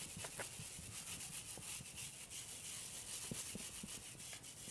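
Faint steady background hiss with a fast, even flutter, and a few soft scratchy ticks.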